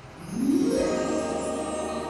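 Music starts: a tone sweeps upward in the first half second, then settles into held, layered chords.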